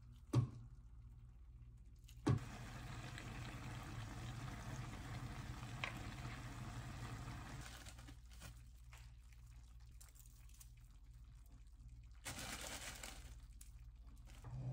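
A pan of kimchi stew simmering, with two sharp plops in the first couple of seconds as slices of tofu drop in. Near the end comes a short crinkle of a plastic bag.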